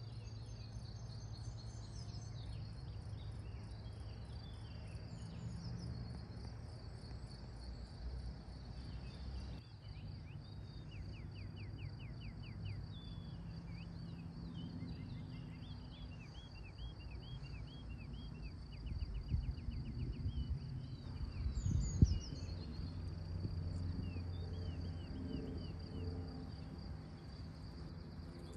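Outdoor ambience: a steady high insect drone, with birds chirping and trilling over a low rumble. There is one sharp knock about three-quarters of the way through.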